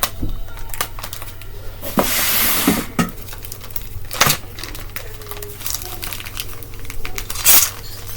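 Packaging rustling and crinkling while ceiling fan parts are handled in their box, with scattered knocks and clinks of the parts. A louder rustle comes about two seconds in.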